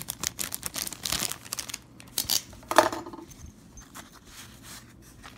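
Clear plastic packaging crinkling and rustling as it is pulled open and off by hand, in a run of crackles with the sharpest about three seconds in. The rustling then dies down to soft handling noise.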